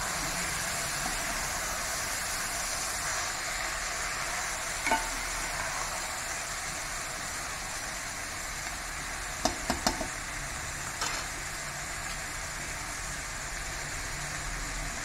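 Soaked basmati rice with green peas frying in oil in a pressure cooker pan, a steady sizzle as it is stirred with a steel spoon. The spoon clinks against the pan a few times around the middle.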